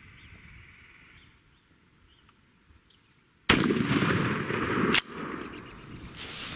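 A single shotgun blast about three and a half seconds in, a Remington 870 firing a Winchester Longbeard XR turkey load; the blast carries on loudly for about a second and a half and then cuts off. Faint bird chirps are heard before the shot.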